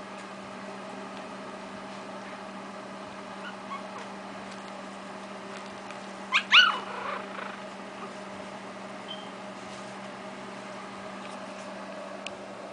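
Three-week-old Shih Tzu puppy giving two short, high squeaks about six and a half seconds in, with a few faint squeaks elsewhere, over a steady low hum.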